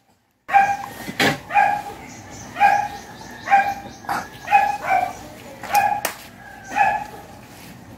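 After a brief silence, an animal gives about nine short, clear, pitched cries, roughly one a second, with a few sharp clicks in between.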